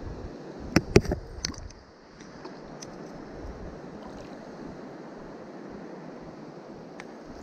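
Steady rush of river water, broken about a second in by a quick handful of sharp clicks and knocks.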